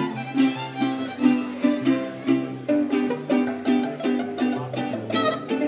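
Live mariachi band playing: strummed guitars keep a steady chord rhythm over a walking bass line.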